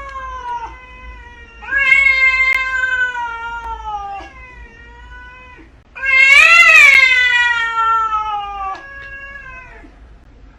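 A cat yowling in long, drawn-out meows, four in a row, each sliding down in pitch. The loudest comes about six seconds in, rising and then falling.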